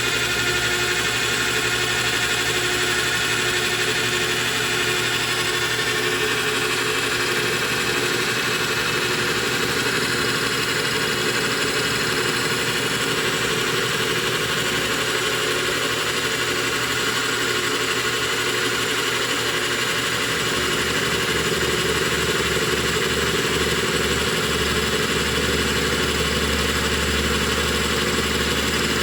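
Metal lathe running steadily under power during a light face-milling pass on a copper bolt, its motor and gearing giving a constant whine over a steady hum.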